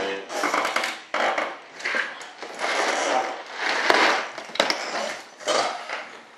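Loose screws and nuts rattling and clattering inside plastic compartment organizer boxes as they are lifted and shifted, with sharp plastic clicks and knocks in a series of uneven bursts.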